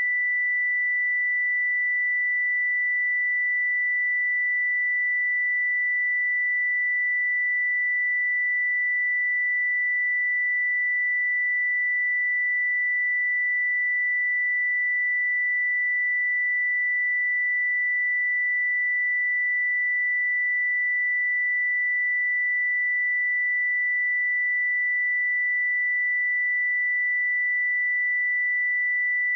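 A pure 1976 Hz sine-wave test tone: a single steady high-pitched note, unchanging in pitch and level.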